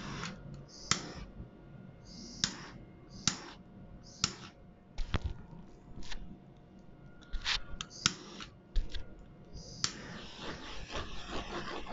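Handheld torch fired in about ten short hissing bursts, then held on with a steady hiss from about ten seconds in, its flame played over wet acrylic paint to pop air bubbles.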